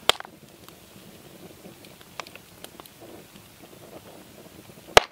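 Sour cream squeezed out of a plastic squeeze pouch onto a metal bowl: faint squishing and rustling, with a sharp click just as it begins and another near the end.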